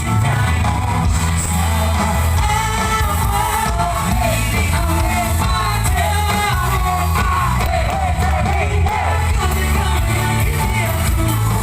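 Live pop music from a band with a heavy, steady bass beat and a singer's voice, recorded loud from the audience.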